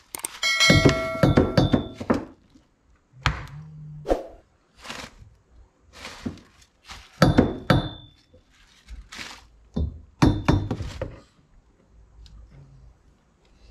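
Dead blow hammer knocking a steel rear strut brace into place over the strut mounts: about a dozen irregular thunks, with a metallic clink and ring from the bar in the first couple of seconds.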